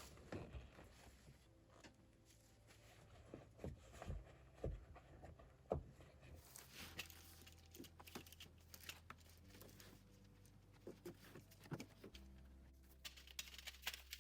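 Near silence: faint low sustained notes that change every few seconds, like soft background music, with scattered small clicks and pops.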